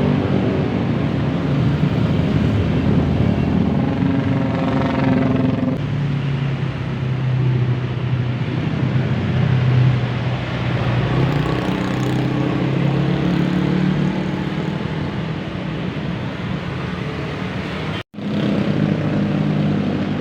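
Intercity buses' diesel engines running as the buses go by, a steady deep engine hum that shifts in pitch and loudness. The sound cuts out briefly near the end.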